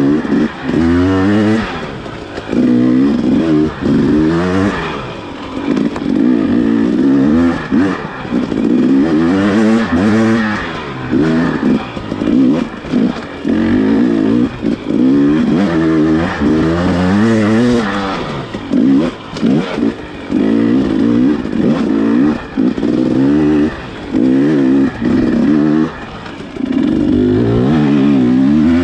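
Dirt bike engine under way, its pitch rising and falling again and again as the throttle is opened and closed, with a few short dips where it is backed off.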